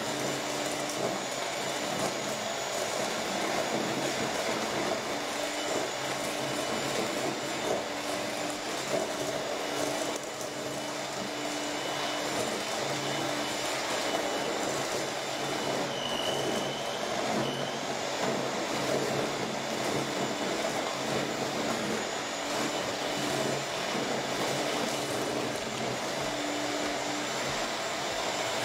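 Electric hand mixer running steadily, its beaters churning butter and granulated sugar in a stainless steel bowl as they are creamed together.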